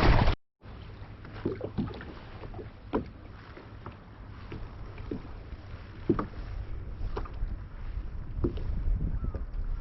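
Water slapping and small knocks against a kayak hull at irregular intervals, over a low wind rumble. There is a brief gap in the sound just after the start, and the rumble grows louder towards the end.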